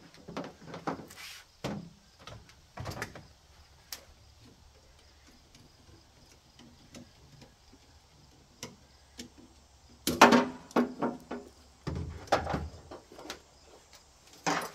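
Heavy-duty DeWalt ratchet tie-down straps being worked to hold an ATV down in a pickup bed: a scatter of clicks and clunks, sparse and faint through the middle, then loud quick runs of clicks twice in the last few seconds.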